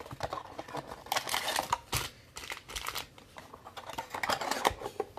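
Crinkling and rustling of packaging being handled, with a few sharp clicks and taps.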